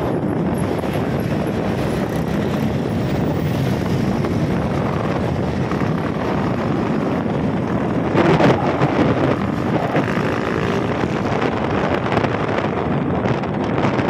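Motorcycle riding along a road: engine running under wind rushing over the microphone, with a louder stretch about eight seconds in.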